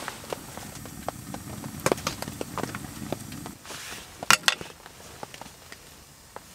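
Irregular sharp ticks and pops, with a louder cluster of knocks about four seconds in.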